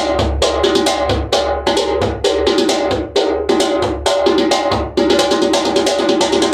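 Ivory Coast djembe with an iroko shell and a 13.5-inch head, played by hand in a fast, continuous run of strokes that pauses briefly a few times.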